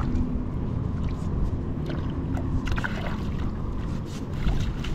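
Shallow water splashing and sloshing as a cast net with a fish caught in it is dragged in through the shallows, with short splashes from the fish over a steady low rumble.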